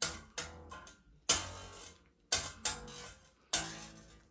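Unamplified 10-string Grand Chapman Stick played by light tapping on the strings: about six separate notes, each with a sharp attack and a ringing decay.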